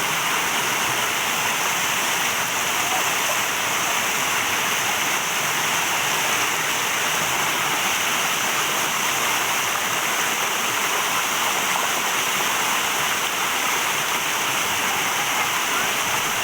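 Steady, loud rush of flowing river water, even and unbroken.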